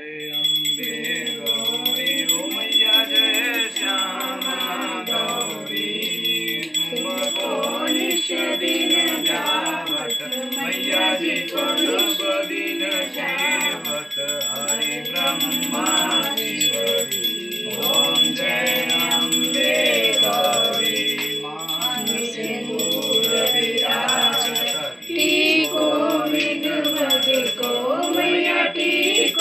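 Hindu devotional song with singing and instrumental music.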